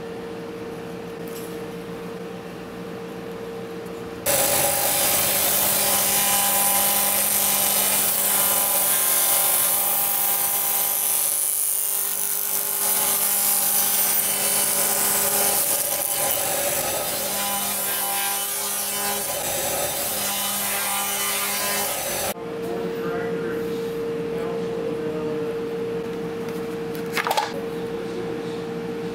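Table saw crosscutting a dry black locust limb: a loud, sustained cutting noise from about 4 seconds in until about 22 seconds. Before and after it there is a steady machine hum, and there is one sharp knock near the end.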